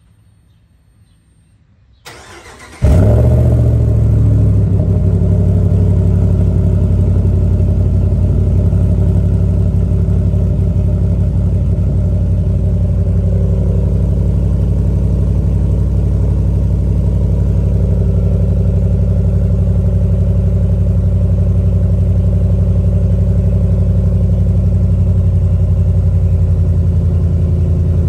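A 2021 Ram 1500 Rebel's 5.7-litre Hemi V8 cold-starting through a muffler-delete exhaust. About two seconds in, the starter cranks briefly. The engine then catches with a short flare of revs and settles into a steady idle.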